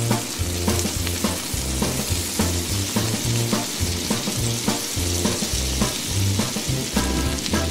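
Steady sizzling hiss like food frying, with a low bass line of background music underneath.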